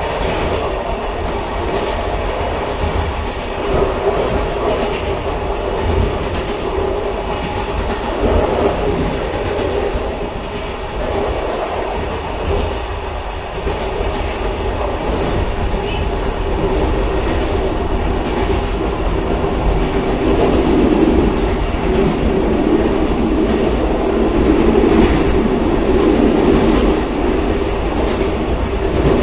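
Railcar running on the rails: a continuous rumble of the moving train that swells somewhat louder over the last third.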